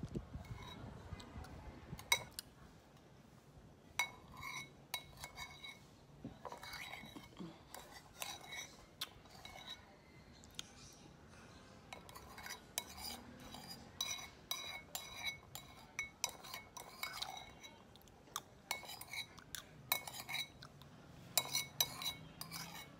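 A metal spoon clinking and scraping against a bowl of pap while someone eats: irregular light taps, each with a short ring, coming in small clusters.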